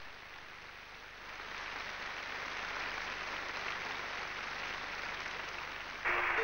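Audience applause in a large hall, faint at first, swelling slightly about a second in and then holding steady. Music starts up just before the end.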